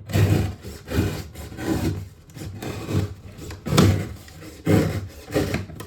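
Double-wall corrugated cardboard being cut and torn in repeated rough strokes, about one or two a second, as the edge strips are worked off a cardboard box.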